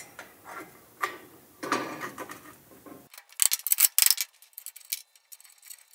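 Steel hinge parts being reassembled by hand: rubbing and sliding as the bushings and bolt go back into the hinge tube, then a quick run of sharp metallic clicks about three seconds in.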